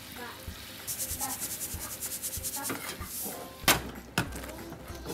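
Kitchen cooking sounds: a rapid run of fine ticks lasting about two seconds, then two sharp knocks about half a second apart, the first the loudest.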